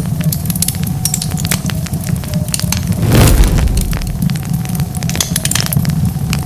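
Wood fire crackling, with frequent sharp pops and snaps over a steady low rumble of the flames. A louder rushing flare-up comes about three seconds in.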